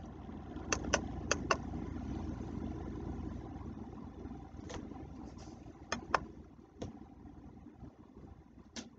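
Low rumbling noise that slowly fades, heard through a small laptop speaker, with scattered sharp clicks: a quick run of four about a second in, a few more midway and one near the end.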